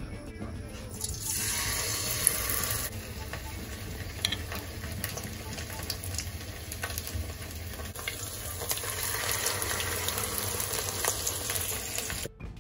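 Cooking oil pouring into a nonstick kadai, then a steady hiss with small crackles of oil frying.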